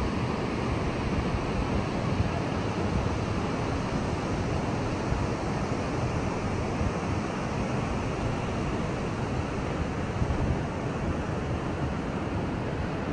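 Steady rushing outdoor noise with no distinct events and no clear rise and fall.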